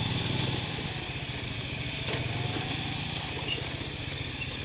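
Small motorcycle engine running steadily at low speed on a rough dirt track, a low even drone.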